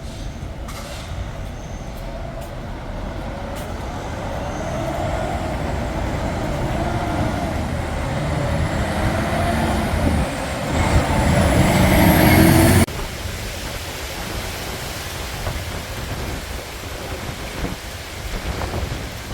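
Storm-force wind rushing and buffeting the microphone in a deep, rumbling roar that builds to a loud gust peak, then drops suddenly to a steadier, lighter rush about two-thirds of the way through.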